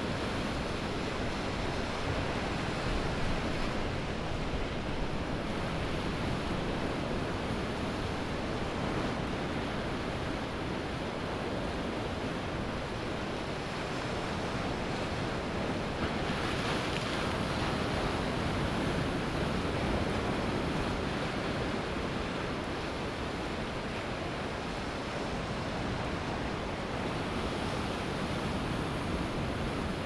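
Ocean waves breaking and washing up a sandy beach in a continuous, even rush of surf. A little past halfway, a bigger wave brings a brighter, hissier swell for a few seconds.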